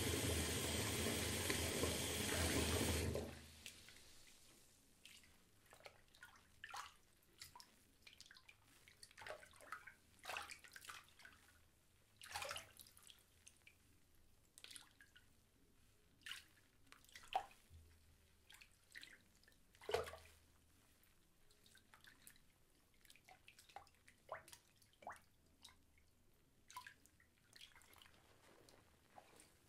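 Tap water pouring into a bathtub, cut off suddenly about three seconds in, followed by scattered, irregular drips falling into the bathwater.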